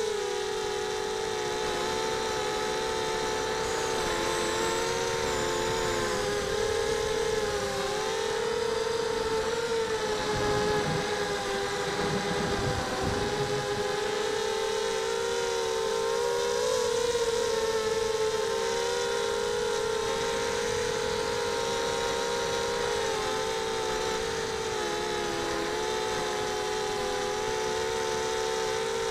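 Mini quadcopter's four Sunnysky 2300 brushless motors and propellers whining in flight, heard from the onboard camera. Several close pitches waver up and down together as the throttle changes, with a brief low rumble near the middle.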